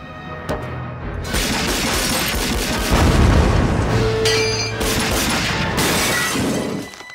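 Dramatic action-film score under cartoon sound effects. A long explosion rumble builds from about a second in and is loudest around three seconds. Window glass shatters near the end.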